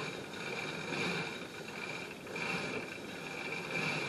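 Steady background hiss with a faint, thin high-pitched whine, swelling softly every second or so.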